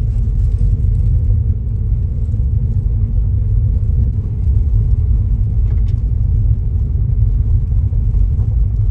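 Loud, steady low rumble with little above it in pitch.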